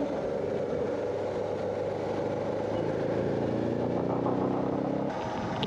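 Motorcycle engine running while riding, over steady wind and road noise; from about two seconds in its pitch climbs as the bike speeds up, then falls away shortly before the end.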